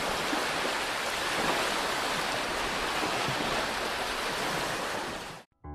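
Ocean surf rushing in a steady wash, which cuts off suddenly near the end.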